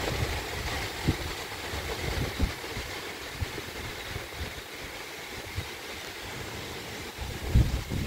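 Hurricane wind blowing with a steady hiss, gusts buffeting the microphone in irregular low rumbles, the strongest near the end.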